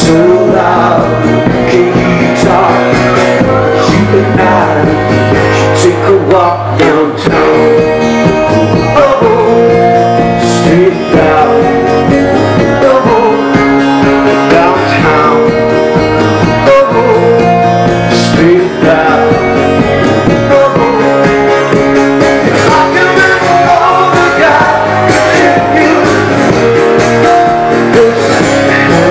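Live rock band playing: electric guitar with a male lead vocal, steady and loud throughout.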